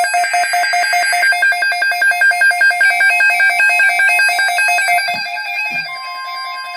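Electronic emergency alert tone pulsing rapidly at a fixed pitch, about eight beeps a second, at the start of an Emergency Alert System broadcast. Near the end a steady tone sets in.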